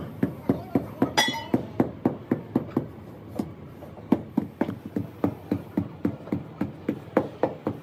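Hammer blows in a quick, steady rhythm of about four a second, each a sharp knock. The blow about a second in rings out with a clear metallic tone.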